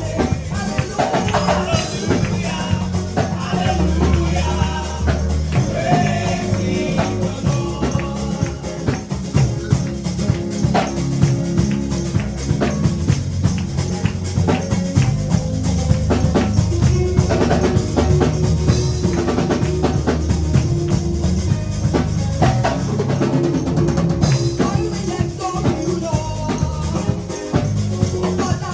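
Live gospel praise music: drums and tambourine keeping a steady beat under singing.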